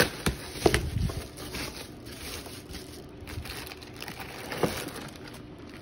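Plastic packaging and a foil-lined insulated box liner rustling and crinkling as hands rummage through a meal-kit box, with a few sharp knocks in the first second.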